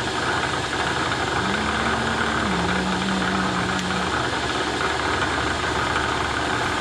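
Drill press running steadily, its bit cutting a 31/64-inch hole in a metal part, with a dull bit that is resharpened soon after.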